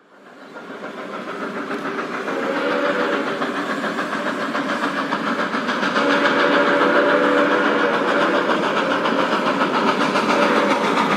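Steam locomotive running, fading in over the first few seconds with a regular rhythmic pulse, while its steam whistle blows, strongest from about six seconds in.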